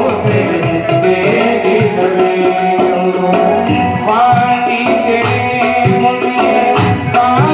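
Devotional bhajan music: long held melodic notes over a steady tabla rhythm.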